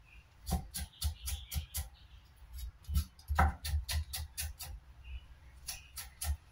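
Cleaver chopping black beans on a wooden chopping board: three quick runs of sharp knocks, about four a second, each stroke landing with a dull thud on the wood.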